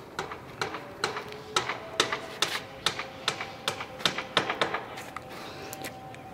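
Footsteps: a run of sharp clicking steps, about two to three a second, loudest in the middle.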